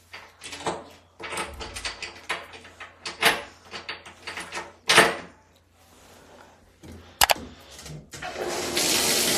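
A series of irregular knocks and clicks, then a bathtub tap is turned on near the end and water starts running steadily into the tub.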